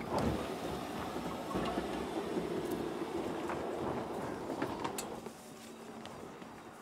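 Mercedes-Benz GLC SUV driving over a dirt forest track: tyres crunching over dirt and stones, with scattered sharp clicks of stones and twigs and a low steady drive hum. A sharp hit opens it, and the sound drops away a little after five seconds as the vehicle moves off.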